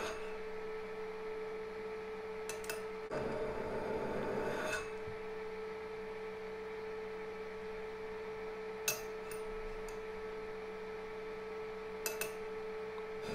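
Small bench lapping machine's motor humming steadily, with a stretch of abrasive rubbing lasting nearly two seconds about three seconds in as the watch case is worked against the grit. A few light metal clicks.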